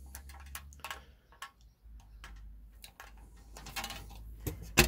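Hand pop-rivet gun clicking as its handles are worked on a rivet through thin sheet metal: a run of irregular sharp clicks, with one much louder click near the end.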